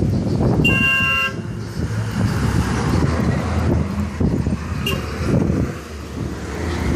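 Paper towel rubbing peanut butter over a car's painted hood, over a steady low rumble. A vehicle horn toots once, briefly, about half a second in.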